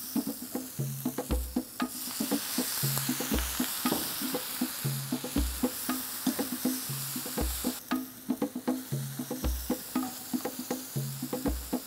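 Wooden spatula stirring and tapping salted button mushrooms as they sizzle in a hot enamelled pan, the sizzle stronger for a few seconds in the middle. Background music with a steady bass beat underneath.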